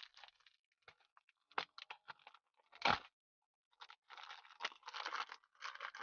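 Packaging being handled: short bursts of crinkling and rustling, one louder knock about three seconds in, then denser rustling near the end.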